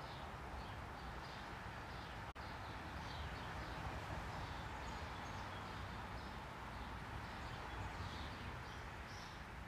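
Birds chirping, many short high chirps a couple of times a second, over a steady low outdoor hiss.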